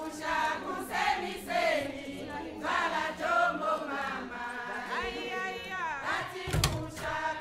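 A group of voices singing or chanting together in a continuous, gliding melody. About six and a half seconds in, a single sharp knock with a low thud.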